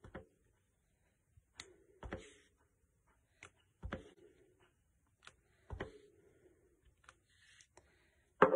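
Clear acrylic stamp block being inked on an ink pad and pressed onto card stock: a light click, then a soft knock, about every two seconds, four times. Near the end there is a much louder knock that rings briefly.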